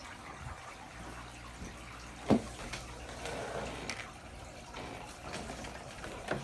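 A single thump on a wooden table about two seconds in, then soft paper rustling as a sheet is spread out and smoothed, over a low steady hum.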